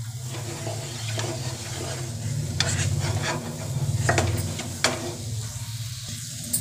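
A wooden spatula stirring and scraping thick wheat-flour halwa in a non-stick pan, the mixture sizzling in ghee after the sugar syrup has gone in. There are a few sharper scrapes between about two and a half and five seconds in, over a steady low hum.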